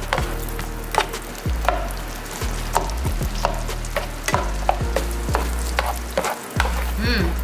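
Chopped garlic frying in melted butter in a pan, sizzling, while a slotted spatula stirs it and scrapes and taps against the pan with frequent short clicks. The garlic is being sautéed until it turns brown.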